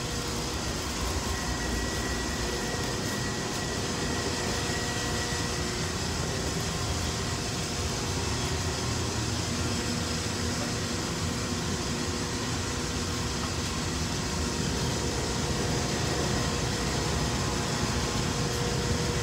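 Steady hum and rush of ventilation machinery running, with a few faint steady whines over it.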